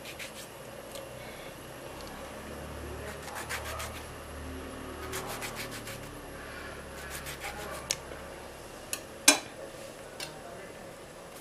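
Knife cutting through a tomato held in the hand, in several short runs of scraping strokes. About nine seconds in comes a single sharp, loud knock as the knife is set down.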